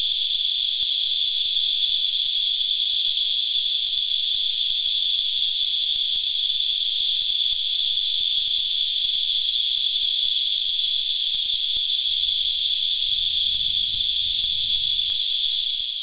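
Cicadas singing: a loud, steady, high-pitched whine that holds without a break.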